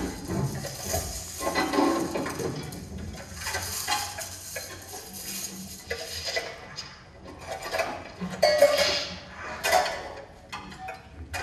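Metal pots, pans and lids being handled, clattering and scraping in irregular bursts with some ringing.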